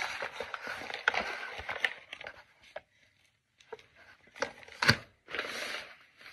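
Brown kraft-paper mailer bag rustling and crinkling as it is handled, in two stretches with a short lull about halfway, with a few sharp crackles of the paper.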